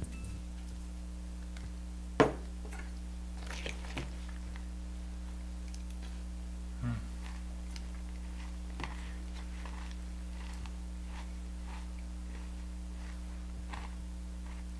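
Spoon clinking in a bowl of cereal and faint crunching as it is eaten, small scattered ticks over a steady low hum. A sharp knock about two seconds in is the loudest sound, with a duller thump near the middle.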